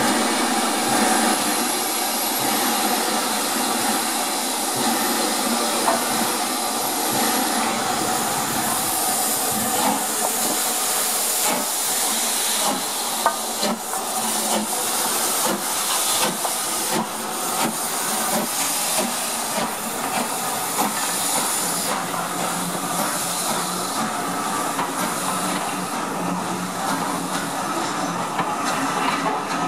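LNER B12 4-6-0 steam locomotive No. 8572 hissing steam as it moves off with its train, with a thin high whistle-like hiss over the first several seconds and a run of knocks in the middle. Its coaches roll past near the end.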